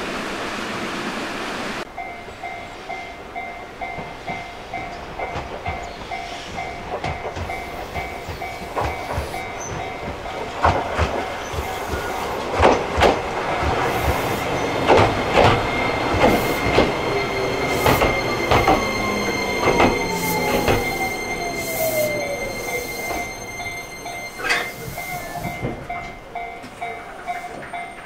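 Alpico Kamikochi Line 20100-series electric train with a Toyo IGBT-VVVF inverter pulling into a station: its wheels click and knock over the rail joints, and the inverter's whine falls steadily in pitch as it brakes. A fast repeating bell-like alarm tone rings throughout.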